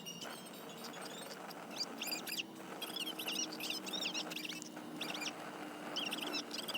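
Small wild birds calling and singing in quick, warbling chirps, phrase after phrase, over a faint steady low drone.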